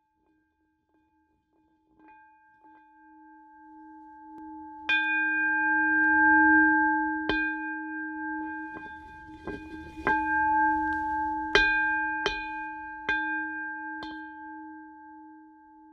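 Singing bowl ringing with a sustained hum that swells in gradually, then struck again and again from about five seconds in, each strike adding a bright ting over the ringing.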